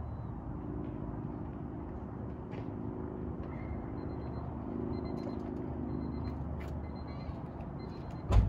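1996 Honda Civic EX's 1.6-litre four-cylinder idling steadily through a straight-pipe exhaust with the muffler deleted. A single short knock sounds near the end.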